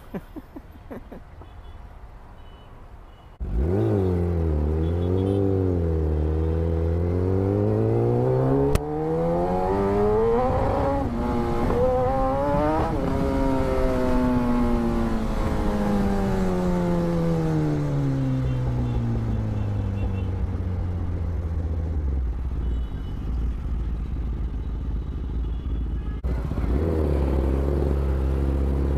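Kawasaki ZX-10R inline-four engine pulling away: it comes in suddenly about three seconds in, and its pitch climbs steadily for about nine seconds, then falls away as the bike slows. Near the end it settles into a steadier low running note.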